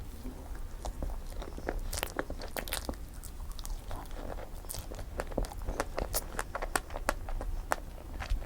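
Close-miked chewing and biting of strawberry cream cake: a steady run of many small, sharp mouth clicks and smacks.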